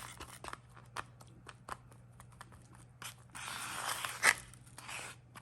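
Two-part adhesive being stirred and mixed: a scattering of small clicks and taps, then a longer scraping stretch about three seconds in that ends in a sharp click.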